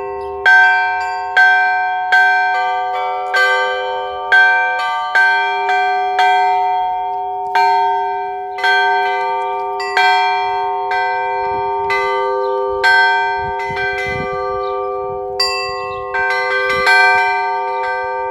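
Several church bells of different pitch rung by hand, struck about once a second in an uneven pattern. Each stroke rings on and dies away over a steady deep bell tone.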